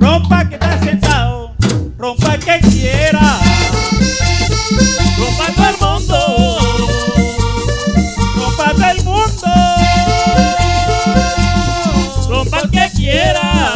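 Instrumental passage of Colombian tambora band music: a melody of sliding and held notes, one note held for about two and a half seconds midway, over a stepping bass line and steady quick percussion.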